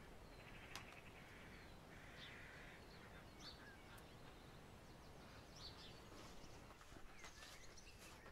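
Faint distant birdsong: scattered short chirps and two brief trills, one near the start and one about two seconds in, over a quiet background hiss.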